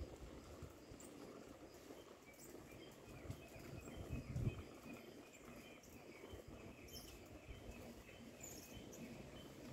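Faint footsteps and knocks on the microphone, with one louder thump about four and a half seconds in. A bird chirps over them, a short call repeated over and over.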